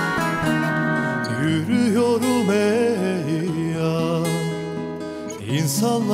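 Song with a plucked acoustic guitar accompaniment. A wavering, vibrato-laden melody line comes in over it about a second and a half in.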